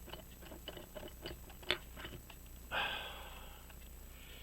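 Small, sharp clicks and taps of hand tools on pocket-watch parts during balance staff work, several in the first two seconds, then a breathy exhale a little past the middle.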